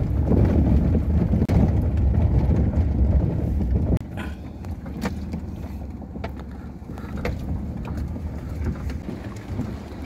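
Car driving over a rough dirt track and through a shallow stream crossing, heard from inside the cabin: a low rumble of engine and tyres, loudest for the first four seconds, then quieter, with scattered knocks.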